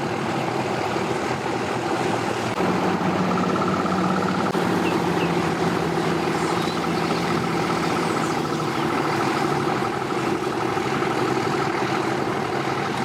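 Engines of tow vehicles and boats running steadily together, with one engine's hum coming up about three seconds in and easing off after about eight seconds.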